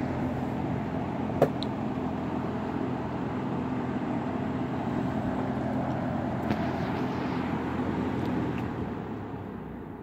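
Rebuilt Kenmore box fan running on low, a steady whoosh of air over the motor's hum, quiet and free of squeaks on its reworked bushings. There is a single sharp click about a second and a half in. Near the end the fan is switched off and the sound dies away as the blades spin down.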